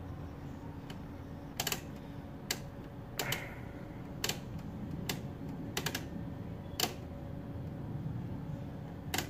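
Sharp clicks of the front-panel knobs and switches on a Tektronix 7104 oscilloscope being worked: about eight clicks at irregular spacing, some in quick pairs, over a steady low hum.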